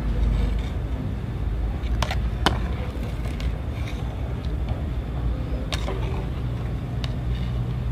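Pot of fish and sour cabbage soup boiling, with a steady low rumble under it and a few sharp clicks here and there.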